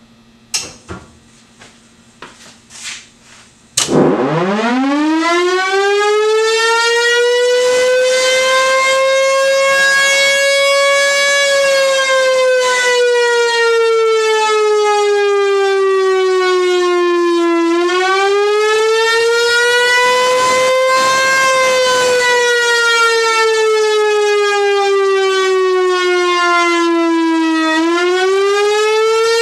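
Federal Thunderbolt civil defense siren with a Fort Worth Bar Grill 1000 chopper on a 1959 Dallas blower, driven by a pneumatic tube system blower, starting up about four seconds in with a steeply rising wail. It then sounds continuously, its pitch slowly rising and falling and dipping sharply about every ten seconds as the horn rotates. The horn buzzes, which the owner puts down to broken welds.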